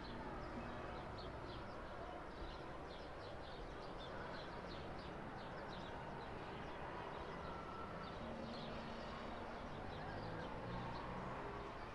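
Small birds chirping busily, many short high calls in quick succession over a steady background noise.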